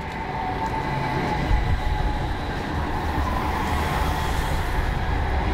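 Modern street tram passing close by: a steady running rumble with a faint whine, the hiss swelling as it goes past just after the middle.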